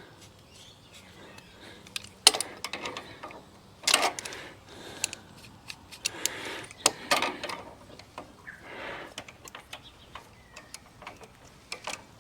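Hand tools clinking and scraping on metal as a nut is worked loose on a Harley-Davidson motorcycle: irregular sharp clicks and short scrapes.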